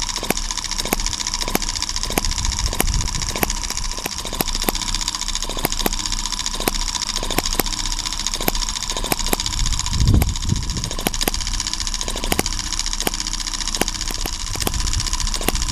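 M17 1.6cc four-stroke petrol hit-and-miss model engine running steadily on its own: a regular train of sharp clicks about three a second over a steady high tone, with one heavier low thump about ten seconds in.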